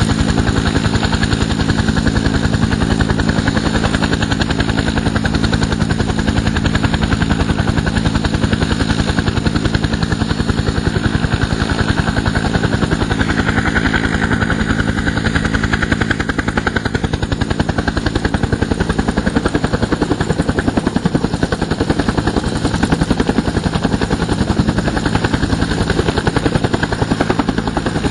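Bell UH-1 Iroquois (Huey) helicopter running close by: a rapid, even beat of the main rotor blades over the steady sound of its turboshaft engine.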